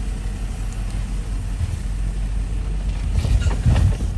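Jeep Wrangler Rubicon's engine running at a low crawl over a rocky trail rut. About three seconds in there is a louder stretch of crunching and knocking as the tyres work over the rocks.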